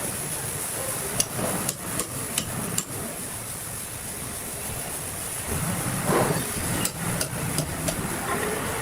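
Scattered sharp knocks and clacks, a quick run of several and then a few more later on, over a steady high hiss and low rumble of machinery.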